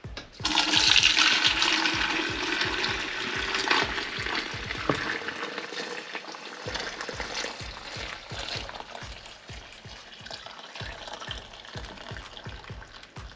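Hot mauby liquid poured from the pot through a strainer, splashing into the container below. The pour comes in loudly about half a second in and gradually thins out.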